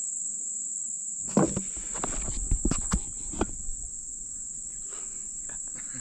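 Insects calling in a steady high-pitched drone, with scattered knocks and rustles from about a second in.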